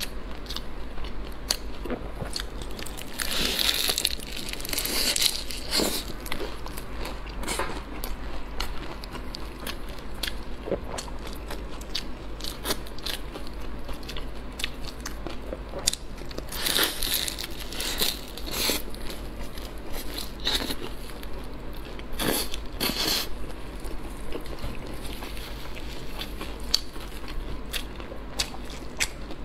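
Close-miked crunching and chewing of a crisp deep-fried bread pocket stuffed with green pepper, the crust crackling under the teeth. The loudest crunchy bites come about three seconds in, again around seventeen seconds, and twice more around twenty-two seconds, with steady chewing crackle in between.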